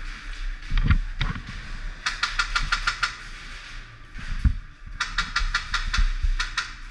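Airsoft guns firing two rapid bursts of sharp clicking shots, about eight to ten a second, the first about two seconds in and the second about five seconds in, with a few dull thumps between them.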